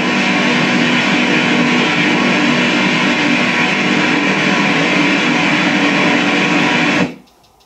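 ITC portal output: a loud, dense jumble of scrambled sound fragments over hiss, in which the session's listeners try to pick out spirit voices. It stops abruptly about seven seconds in.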